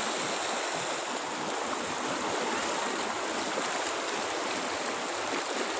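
Fast, muddy river water rushing steadily over rocks and boulders: a mountain river still running with cold lahar after a volcanic flash flood.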